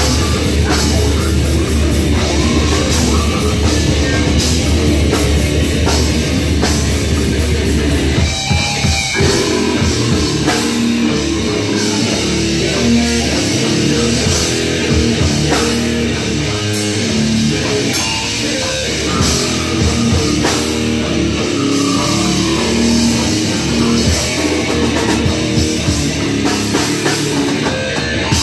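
Live death metal band playing: distorted electric guitars and a drum kit, with a brief break about eight seconds in before the band comes back in.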